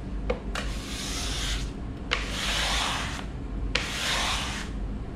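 Card scraper drawn over a wooden guitar top, shaving it smooth to thickness: three scratchy strokes about a second long, each starting with a sharp tick as the edge bites.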